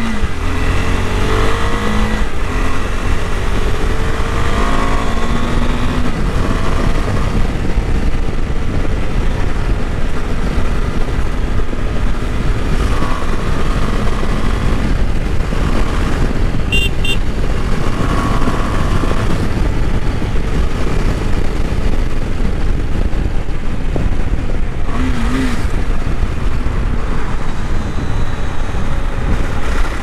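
KTM 390 Adventure's single-cylinder engine and exhaust under way, heard from the rider's seat, rising in pitch as it pulls away in the first few seconds and then running steadily, mixed with a heavy rumble of wind and road noise.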